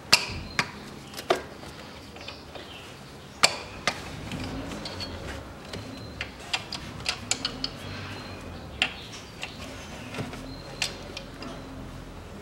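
Wrench clicking and clinking on the camshaft pulley bolts as they are loosened, a scattered run of sharp metallic clicks at irregular intervals, a few in quick succession around the middle.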